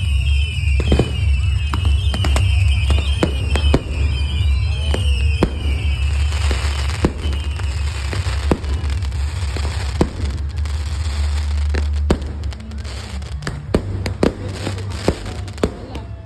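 Fireworks going off: a rapid string of sharp bangs and pops, with whistling tones over the first few seconds and a crackling hiss from about six seconds in, over a steady low hum.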